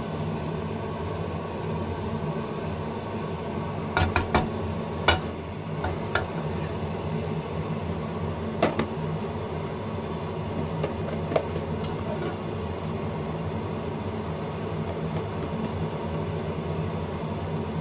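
Steady motor hum of a kitchen fan running, with a few light clicks and knocks of kitchenware, a cluster of them about four seconds in.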